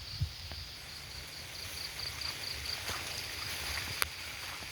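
Outdoor field ambience: an insect chirring in a fast, steady pulse over a low rumble, with one sharp click about four seconds in.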